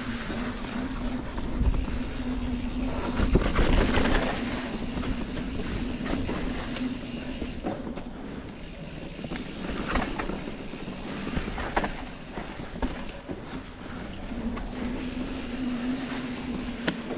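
Norco Torrent steel hardtail mountain bike riding fast down a dirt singletrack: tyres rolling on dirt with wind rumble on the camera microphone, and the bike rattling and knocking over bumps, loudest about four seconds in. A steady buzzing hum runs through the first few seconds and again near the end.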